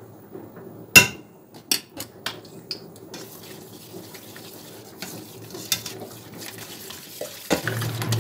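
A spoon knocks sharply on a stainless steel pot about a second in, then a few lighter knocks as flour is spooned in. After that a whisk stirs the thick yogurt-and-flour batter in the pot, with steady scraping and small clicks against the metal.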